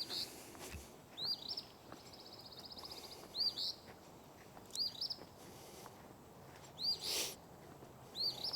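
Songbirds calling: short arching two-part chirps repeating about every second and a half, with a rapid trill about two seconds in and a brief harsh rasp near the seven-second mark.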